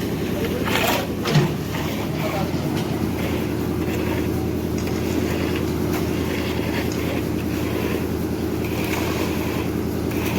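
Steady low machine drone, like a running engine, with faint voices in the background and a short thump about a second and a half in.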